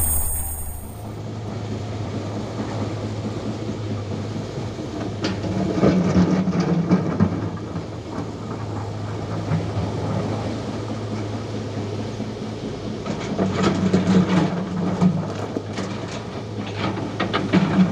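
Heavy diesel engine of a hydraulic excavator running with a steady low drone. It surges louder under load three times, about six seconds in, around fourteen seconds and near the end, each time with short clanks and knocks.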